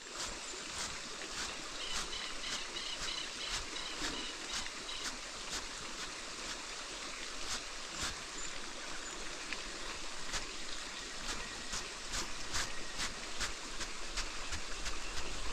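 River water running steadily, with many scattered light ticks through it.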